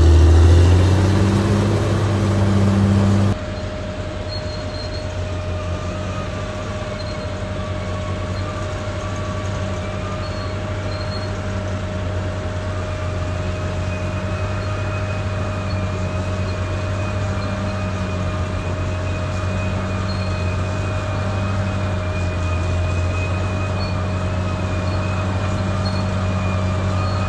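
Caterpillar D6R XL bulldozer's diesel engine running steadily with a low hum and a faint whine above it; the sound cuts abruptly to a slightly quieter take about three seconds in.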